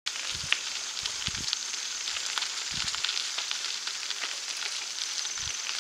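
Bicycle tyres rolling over a gravel trail: a steady crackling crunch of small stones with scattered clicks, and a few short low thumps.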